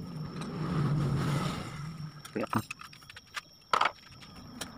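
Motor vehicle engine hum that swells and fades over the first two seconds. Then a few sharp metallic clinks, the loudest about four seconds in, as the timing chain and chain guide of a Suzuki K14B engine are handled and lifted off the sprockets.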